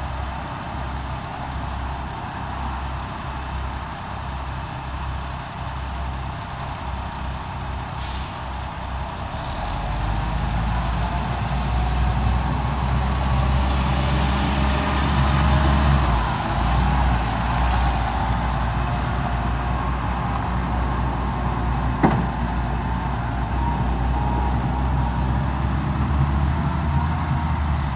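Road traffic on a nearby road: a heavy vehicle's low rumble builds about ten seconds in and runs on, with a rising hiss around the middle. One sharp click comes a little after twenty seconds.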